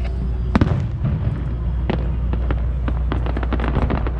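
Fireworks shells bursting: a loud bang about half a second in, another near two seconds, then a quick string of shorter pops and crackles, over a steady low rumble.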